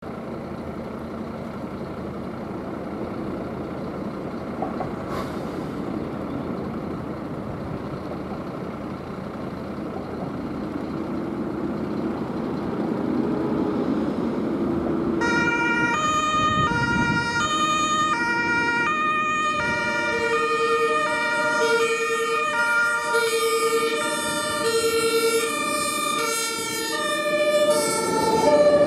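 Fire engines approaching on an emergency run: the rumble of heavy vehicles, then about halfway through a German two-tone siren (Martinshorn) starts, alternating between two pitches. More sirens soon overlap it, and the whole grows louder as the convoy nears.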